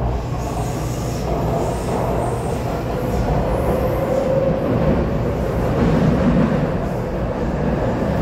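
Taipei Metro C371 train heard from inside the car as it pulls away into the tunnel: a steady rumble of steel wheels on the rails with a hum from the traction motors, growing slightly louder as it gathers speed.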